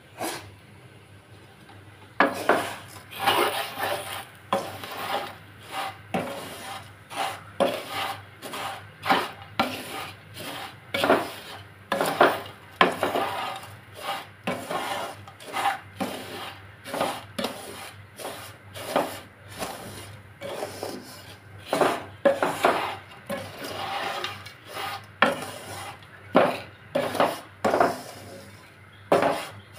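A utensil stirring dry roasted vermicelli in an aluminium pot, scraping and knocking against the pot in repeated strokes, a little more than one a second, starting about two seconds in.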